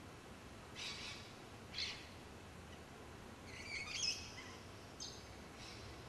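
Birds calling outdoors: two short calls about a second and two seconds in, a longer, louder warbling call with quick pitch changes around four seconds, and another short call near five seconds, over faint background hiss.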